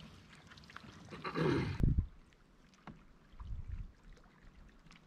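Quiet handling sounds aboard a fishing kayak on calm water: soft low knocks against the hull and a few small clicks of gear, with a sudden thump about two seconds in.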